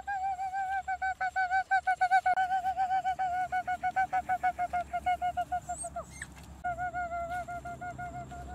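A puppy whining in a fast, even run of short high cries on a steady pitch. It breaks off about six seconds in and starts again soon after.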